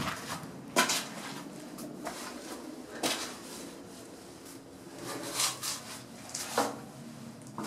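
Footsteps scuffing and knocking on concrete steps and floor, a few sharp irregular scrapes, echoing in a small bare concrete room.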